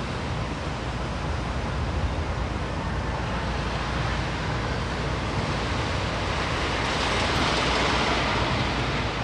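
Steady rushing outdoor noise with a low rumble, swelling louder about seven seconds in.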